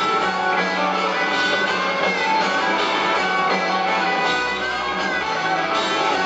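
Live rock band playing in an arena, with electric guitars and drums, heard steadily and loudly from far out in the audience.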